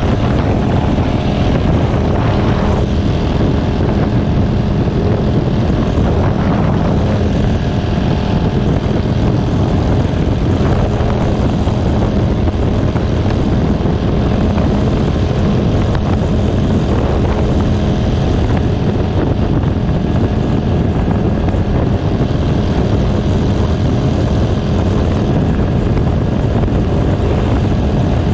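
Steady, loud engine drone with a constant low hum and a rushing noise over it, unchanging throughout.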